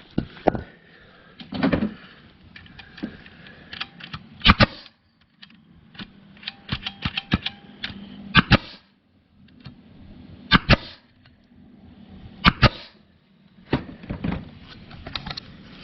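Pneumatic 18-gauge narrow crown stapler firing staples into a log: about five sharp shots spaced a couple of seconds apart, with smaller clicks and handling knocks between.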